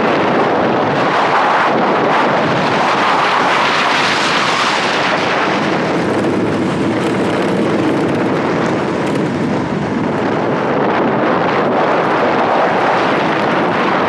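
Steady rush of wind over the microphone mixed with tyre and road noise from an engineless gravity race car rolling fast downhill on asphalt.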